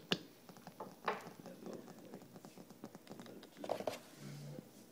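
Light taps and scratches of a kitten moving about inside a cardboard box, in scattered bursts.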